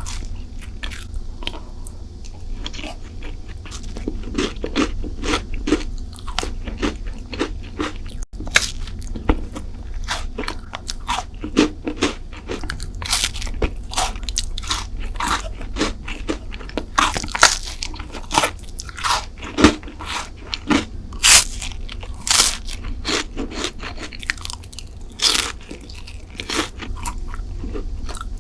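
Close-miked eating of sweets: repeated crunchy bites and chewing, with sharp crackling crunches coming thick and fast.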